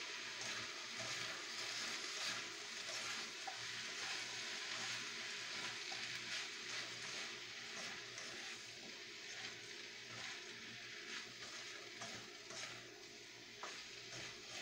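Potatoes and carrots sizzling in a hot wok while a spatula stirs and scrapes them, with scattered small clicks of the spatula against the pan. The sizzle grows gradually quieter toward the end.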